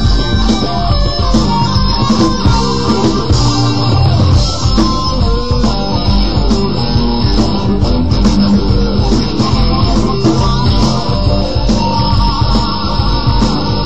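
Electric guitar, a Japanese-made Fender Squier Series Stratocaster, played over a rock backing track with bass and drums.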